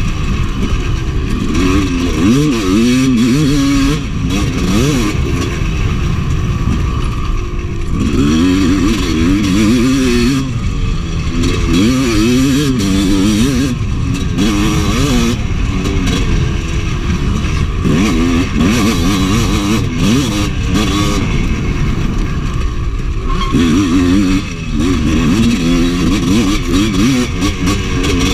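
Honda CR250 two-stroke dirt bike engine ridden hard, its revs repeatedly rising and falling.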